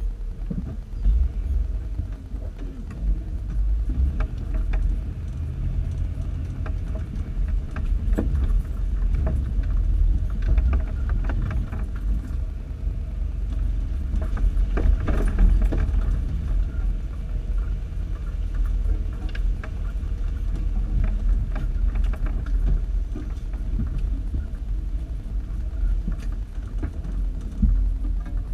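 Jeep crawling slowly over a rutted off-road trail: a steady low engine and drivetrain rumble, with frequent short rattles and knocks from the body and suspension as it works over the ruts.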